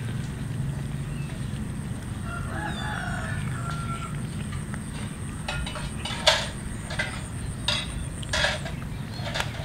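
A rooster crows once, a couple of seconds in, over a steady low background rumble. It is followed by a run of short, sharp noisy sounds in the second half, the loudest about two-thirds of the way through.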